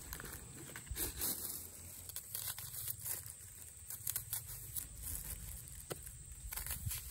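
Kitchen handling noise: aluminium foil crinkling as a knife works into a foil-wrapped roast, then onion skin being peeled and cut with a knife. The sound is scattered crinkling, tearing and light scraping, with a few sharp clicks.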